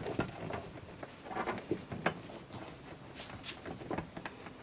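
Hands pressing a cap closed over freshly routed wiring and washer hose. There are soft, scattered clicks and rustles of plastic and rubber being pushed into place.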